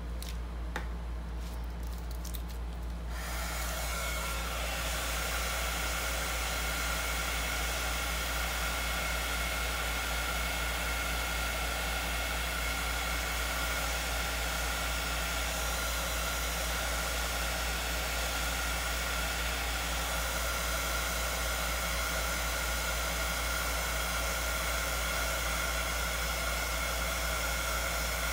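Small handheld heat gun switched on about three seconds in, then running steadily with a hiss of blown air and a steady whine, blowing over wet epoxy resin.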